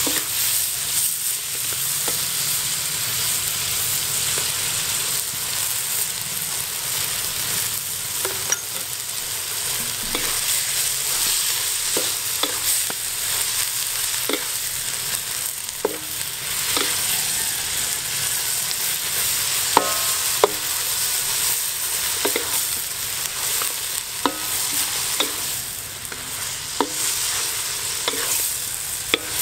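Shelled mussels stir-frying in a hot wok, sizzling steadily as a wooden spatula tosses them, with short knocks of the spatula against the wok every second or two.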